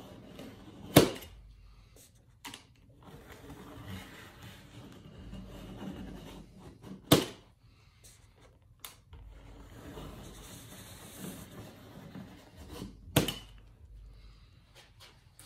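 Utility knife scoring thin aluminium flashing along a metal straightedge, a low scraping rub, broken by three sharp clacks about six seconds apart that are the loudest sounds.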